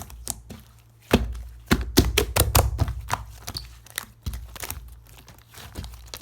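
Slime being squished and pressed by hand, giving a run of sharp clicking pops, with heavier thumps of the slime pressed against a surface clustered between about one and three and a half seconds in.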